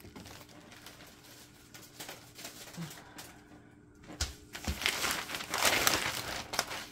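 White packing paper crinkling as it is pulled off a rolled diamond-painting canvas. It is faint for the first few seconds, then grows louder from about four seconds in, with a couple of knocks as the roll is handled.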